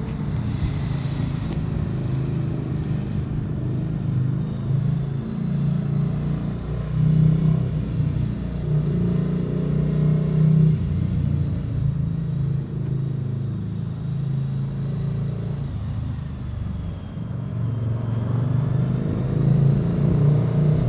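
Motorcycle engine running at low revs, a steady low rumble whose pitch drifts up and down a little.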